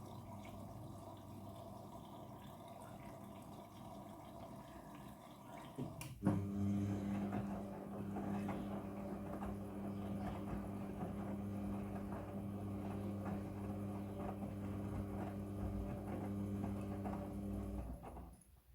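Front-loading washing machine running with water flowing in the drum and a steady electric hum. The hum gets louder after a click about six seconds in, then cuts off just before the end.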